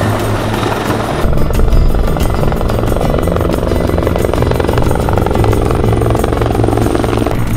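Bell 412 EP twin-turbine helicopter in flight, a steady rotor and turbine sound, with background music under it. The sound changes abruptly about a second in.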